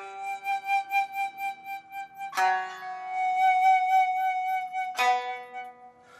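Nagauta music: a Japanese bamboo transverse flute holds long notes, with two sharp accents about two and a half and five seconds in.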